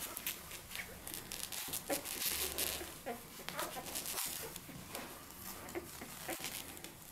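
Four-day-old Belgian Malinois puppies wriggling and nursing on a fabric duvet: soft rustling and crinkling of the bedding, broken by a few faint squeaks and grunts.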